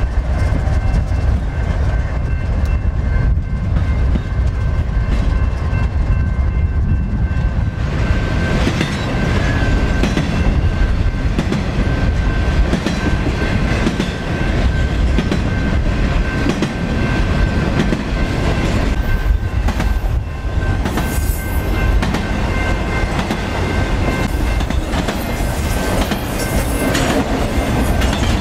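BNSF diesel freight locomotives and trains passing close at speed: a heavy, steady rumble of engines and rolling cars, with the clatter of wheels over rail joints. Thin steady high tones run under the rumble.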